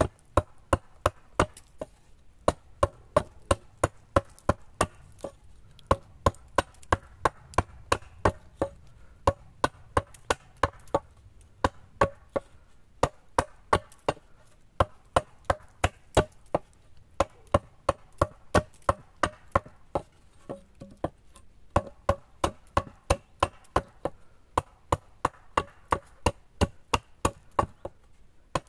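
Hatchet chopping at the end of a wooden pole resting on a stump: a steady run of sharp strokes, about two to three a second, with a few short pauses.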